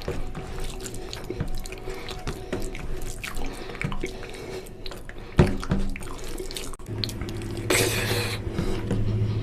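Close-up wet eating sounds of oily mutton curry and rice: squelching, lip smacks and chewing, with a louder wet slurp-like stretch about eight seconds in. A low steady hum comes in about seven seconds in.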